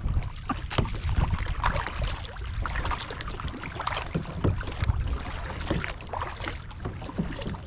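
Kayak paddling on a lake: water splashing and lapping against a plastic kayak hull, with many small irregular splashes and drips from paddle strokes over a low steady rumble.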